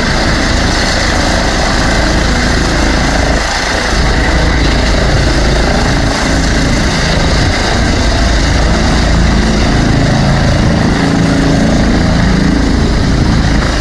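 Medical helicopter descending to land, its turbine and main rotor running loud and steady.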